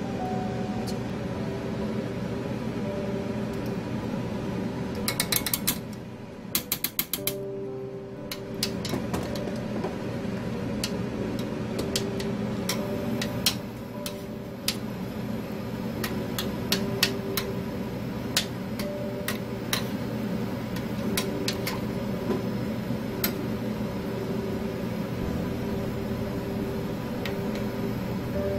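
Metal tongs and a spoon clicking and tapping against a stainless steel pan of water with pork in it, over a steady hum. A quick run of sharp clicks comes about five to seven seconds in, then scattered single taps follow.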